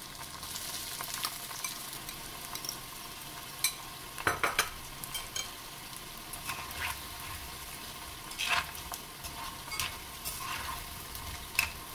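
Cornflake-coated idli pieces deep-frying in hot oil in a cast-iron pan: a steady sizzle and bubbling, broken by a few sharp taps and clinks, the loudest cluster about four seconds in.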